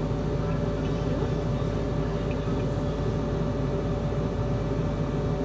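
Steady hum of a fume extractor fan drawing air through its hood and hose: an even low drone with a few held tones over it.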